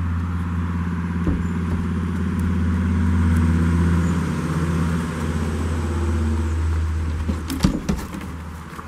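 A steady low engine hum, fairly loud. It is joined by a few sharp knocks and rustles about seven and a half seconds in.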